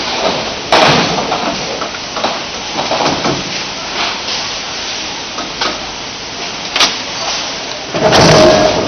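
Factory machinery on a water heater tank production line: a steady noisy hiss with scattered knocks and clatter, a sharp bang about a second in, and a louder rushing burst with a steady hum near the end.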